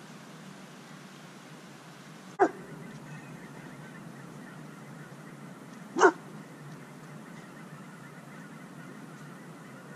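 A dog giving two short, sharp barks, about three and a half seconds apart, over steady outdoor background noise.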